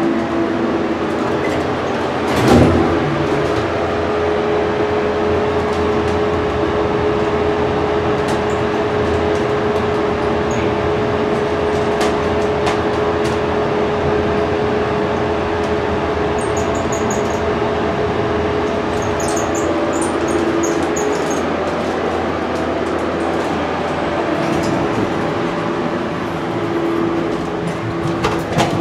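Elevator cab's ventilation fan running with a steady noise, joined by a steady hum that comes in with a thump a couple of seconds in and fades about two-thirds of the way through; a few light clicks near the end.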